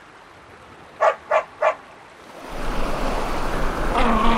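A small dog yaps three times in quick succession about a second in. Then a steady rushing sound with a low hum comes up and carries on.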